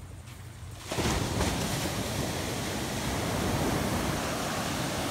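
Ocean surf breaking and washing up the sand, a steady rush that comes in suddenly about a second in, over a low rumble of wind on the microphone.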